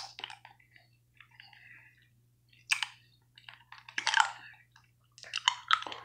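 Mouth sounds of a hard butterscotch candy being sucked and chewed: short wet clicks and crunches in scattered bursts, the strongest about three and four seconds in.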